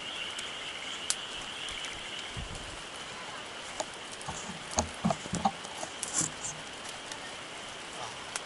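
Wood campfire crackling, with sharp pops bunched around the middle, over a steady high-pitched drone.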